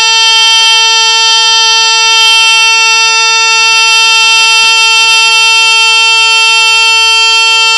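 Teledyne Water Pik model D-1 smoke alarm (1975) sounding its horn in alarm, set off by cigarette smoke: one loud, steady, buzzy tone held without a break.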